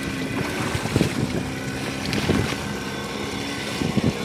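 A boat's outboard motor runs with a steady drone. Wind noise on the microphone and water sound the swimmers stir up lie over it, with a few louder surges about a second in, after two seconds and near the end.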